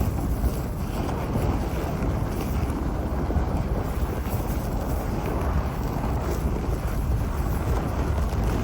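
A vehicle driving steadily, its engine and tyre rumble mixed with wind noise on the microphone.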